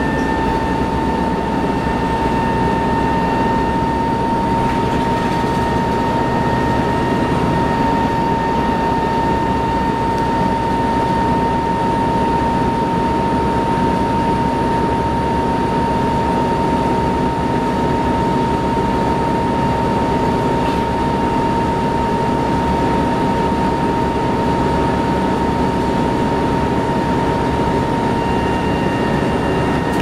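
A 1994 TMC RTS transit bus cruising steadily, heard from inside the cabin: its Detroit Diesel Series 50 diesel engine and Allison VR-731 transmission run with a low rumble, under a steady high-pitched whine that holds one pitch throughout.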